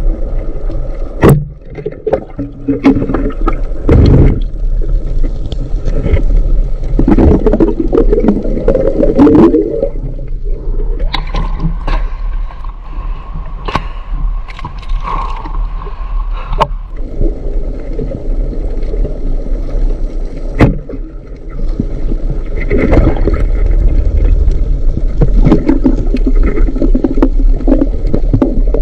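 Water sloshing and gurgling close to the microphone, with irregular surges and sharp knocks and scrapes over a steady low hum.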